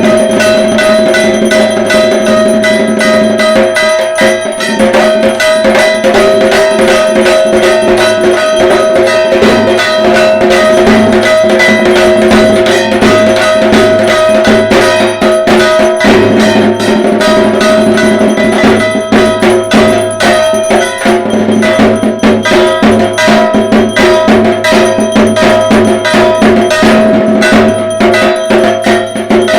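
Dhak drums played nonstop in a fast, driving rhythm, with a ringing metallic clang beaten along with them: Durga Puja festival drumming.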